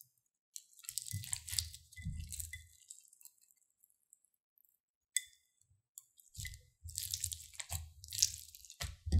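Hands stretching and pressing bead-filled slime, sticky crackling and squishing. It comes in a stretch of about two seconds near the start and again through the last three seconds, with a lull between and a single click about five seconds in.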